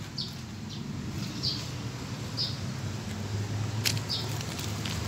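Short high chirps repeating about once a second over a low steady hum, with a single sharp click shortly before the end.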